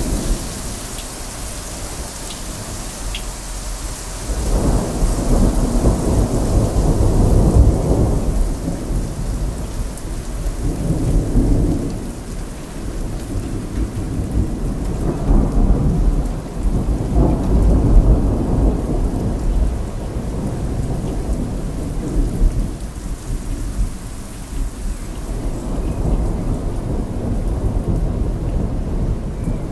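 Thunderstorm: steady rain hissing, with thunder rolling in several long low rumbles that swell and fade, the loudest about a quarter of the way in and again just past halfway.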